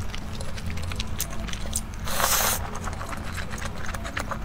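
Close-miked wet chewing of soft wontons in chili oil, with frequent lip smacks and mouth clicks, and a short juicy slurp about two seconds in.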